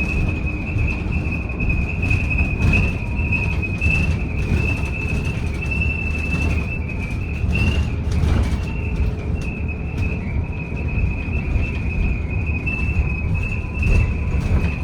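Inside a moving BYD D8UR-DD electric double-decker bus: a steady low road rumble under a constant high-pitched whine, with scattered rattles and knocks from the bodywork or fittings. The rattling is the noise that is called quite annoying.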